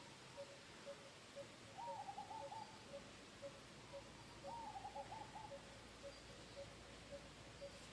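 Faint bird calls: a steady series of short, low hooting notes about two a second, twice joined by a brief bout of quicker, higher, warbling notes.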